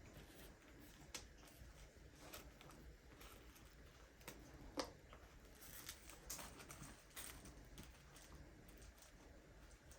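Faint sticky clicks and pops of homemade slime being kneaded and stretched by hand, scattered and irregular, with the sharpest pop about five seconds in.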